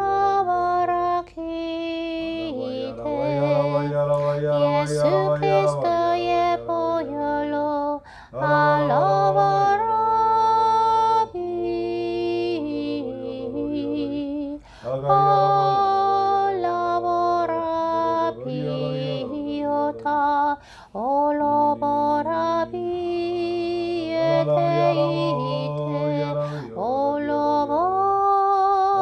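Slow, wordless singing in tongues: held notes that glide up and down between short breaths, over a steady low tone that comes and goes.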